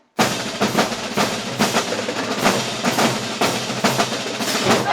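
Marching band drumline playing a loud percussion cadence, snare and bass drums beating out a steady pattern of accented strokes that starts abruptly just after the start.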